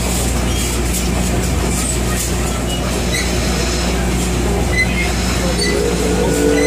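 Virginia V's triple-expansion steam engine running, a steady mechanical din with light regular clatter. Near the end, the boat's steam whistle starts to blow, several steady tones sounding together.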